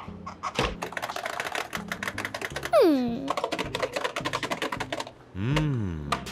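Rapid clicking, like fast typing, over light background music, with a cartoon sound effect of a falling pitch glide about three seconds in and a swooping tone near the end.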